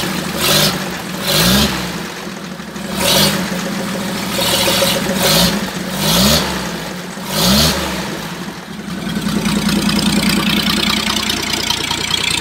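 The 1941 Chevrolet rat rod's engine, blipped by hand at the carburetor throttle linkage: six short revs that rise and fall back in the first eight seconds, then a steady idle from about nine seconds in.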